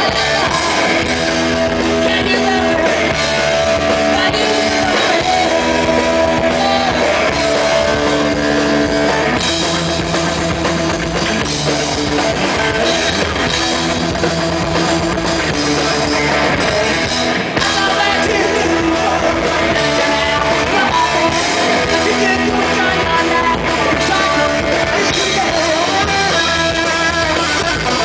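Punk rock band playing live: electric guitars, bass and drum kit with a lead vocal, loud and steady.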